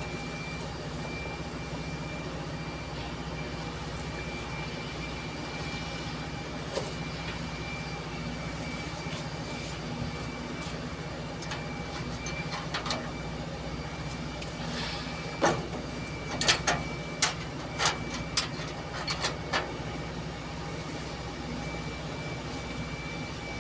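Steady drone of a running heavy-machinery engine, with a thin steady whine above it. About two-thirds of the way through come a run of sharp clicks and knocks, several in a few seconds.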